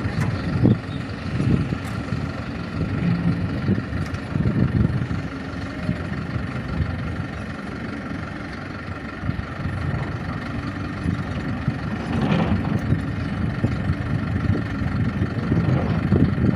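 Engine of heavy work machinery running steadily at a constant speed.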